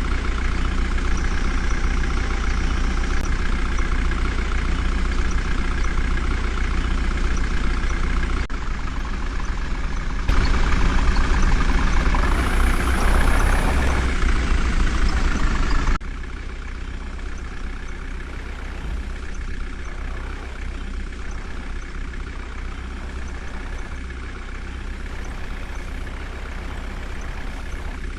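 Heavy diesel engine running steadily with a deep rumble. It gets louder for several seconds near the middle, and the sound jumps abruptly a few times.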